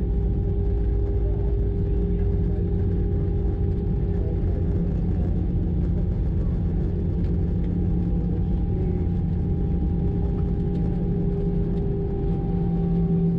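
Cabin noise inside an Airbus A320 during its landing rollout: a steady rumble from the runway and the CFM56 engines, with a hum of a few steady engine tones, as the aircraft slows after touchdown. Near the end the engine tones sink a little lower.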